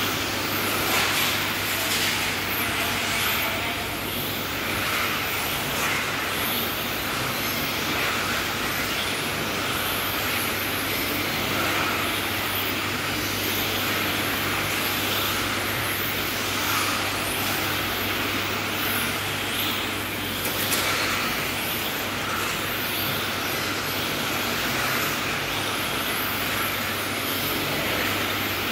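Modified-class radio-controlled touring cars racing laps on an asphalt track: a continuous high-pitched whine of electric motors and tyres that swells and fades as cars pass, over a steady low hum.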